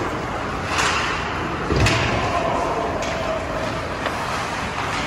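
Ice hockey play in an arena: skates scraping on the ice under an echoing hall noise, with sharp clacks of stick and puck about a second in and again near two seconds, the second with a low thud.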